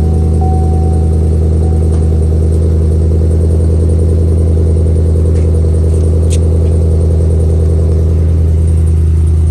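GMC Sierra Denali's 6.2-litre V8 idling steadily just after a cold start, heard at the rear through a Magnaflow 2-in 2-out exhaust with quad tips.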